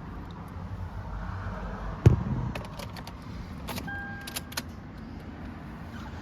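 Toyota 4Runner with its engine running at a steady low idle. About two seconds in comes a single heavy thump, followed by light clicks and jingling keys and a brief electronic chime.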